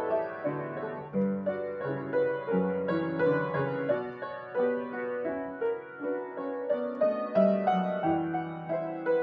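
An upright piano being played by hand: a continuous passage of single notes and chords, with new notes struck every fraction of a second.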